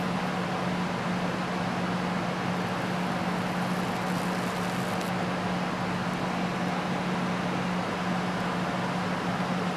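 iPhone speaker playing a steady low hum from a tone-generator app at full volume, buzzing and crackling with distortion because water is sitting in the speaker.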